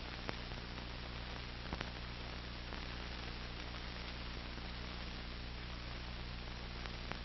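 Steady hiss and mains hum from a VHS tape transfer, with a few faint clicks.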